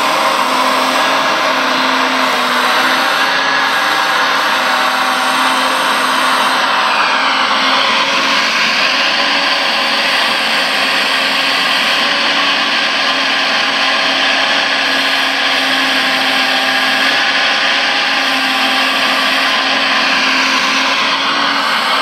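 Radio-controlled Liebherr 956 hydraulic excavator working, its electric hydraulic pump and motors whirring steadily. A higher whine falls in pitch about seven seconds in and rises again near the end as the load on the hydraulics changes.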